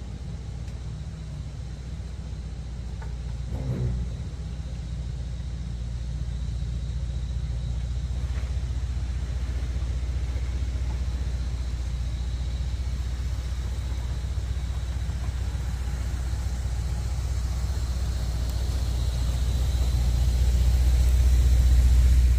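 Toyota 105 Series Land Cruiser's engine running at low revs as the 4WD crawls down a dirt track, steady and growing louder as it comes close and passes near the end.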